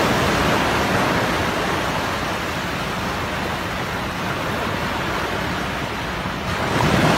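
Low surf breaking and washing over a sandy beach: a steady, even rushing noise.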